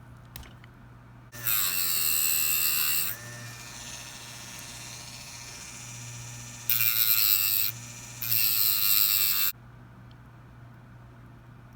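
A small high-speed electric motor whirring: it starts loud about a second in, settles to a quieter steady run, then gives two more loud bursts and cuts off.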